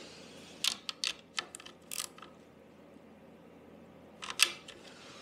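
Hand tools clicking and tapping on metal while screws are fitted through rubber grommets into a scooter's mudguard holder plate: a run of small clicks about a second in, and a louder knock near the end.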